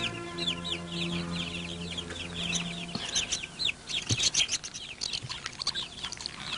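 Chickens peeping and clucking in a rapid stream of short, high, falling chirps. Soft background music runs under them until about three seconds in, and there are a couple of light knocks near the middle.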